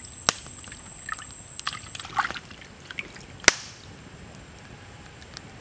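Water sloshing and dripping in a metal pan as raw chicken wings are lifted and rubbed clean by hand, with two sharp clicks, the louder one about three and a half seconds in, as the pan or meat knocks.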